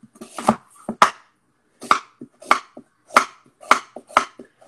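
Chef's knife cutting through an onion and knocking on a wooden chopping board: a steady series of sharp knocks, about two a second.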